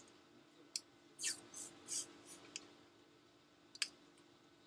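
Adhesive tape being pulled and pressed down over a plastic 96-well plate: a string of short crackly rips and light clicks, with a sharper click near the end.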